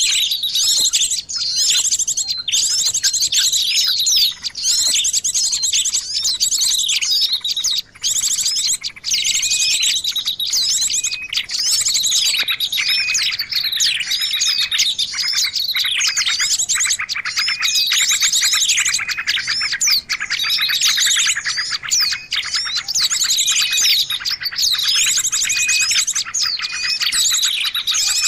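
Many small songbirds chirping and twittering together, a dense unbroken run of high, rapid chirps and trills. It is a lure recording of small-bird calls, used to attract wild small birds.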